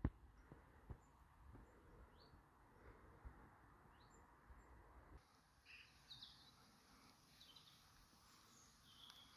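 Near silence: a few faint, short bird chirps over quiet outdoor background.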